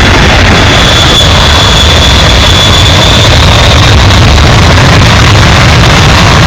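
Loud jet engines of a departing airliner at takeoff thrust, the jet blast rushing over the microphone as a steady heavy rumble and hiss, with a high engine whine fading away about three seconds in.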